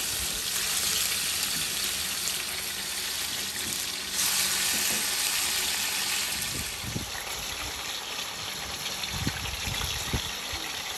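Thin strips of goat steak frying in oil in an aluminium pot over a wood fire: a steady sizzle that grows louder about four seconds in. A few low knocks come in the second half.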